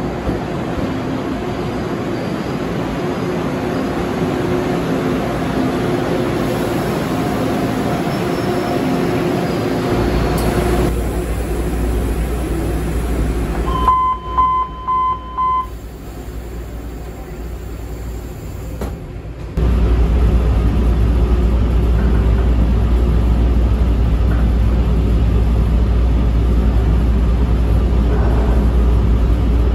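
Taiwan Railways EMU1200 electric multiple unit pulling into the platform, then, from inside the train, about four short high beeps of the door-closing warning about halfway through. From about two-thirds in, the loud steady rumble of the train running at speed, heard at the gangway door between cars.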